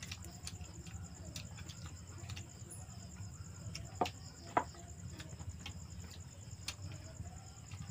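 Crickets chirping steadily at night over a low hum, with scattered sharp clicks and smacks of people eating by hand. The two loudest clicks come about four seconds in.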